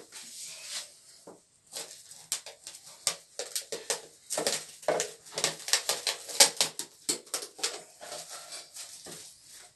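Plastic cling film being pulled off its roll and stretched and pressed over a toilet bowl, crackling and crinkling irregularly, busiest in the middle.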